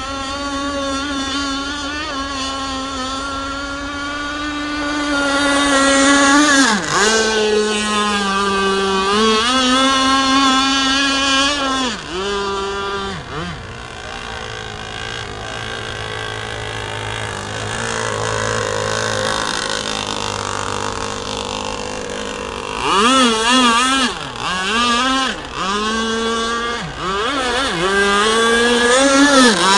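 Gasoline two-stroke engine of a radio-controlled racing boat running flat out at a high whine. Its pitch drops and climbs back as the throttle is eased through turns, with a quieter, lower stretch in the middle and several quick dips and rises near the end.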